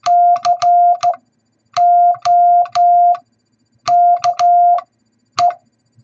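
Morse code hand-sent on a straight telegraph key through a tone oscillator: a steady mid-pitched beep keyed on and off, spelling C-O-K-E (dah-dit-dah-dit, dah-dah-dah, dah-dit-dah, dit), with a click from the key at every stroke.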